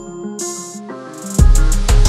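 Background hip-hop music: the bass and beat drop out briefly under a swelling hiss, then heavy bass and drums come back in a little past halfway.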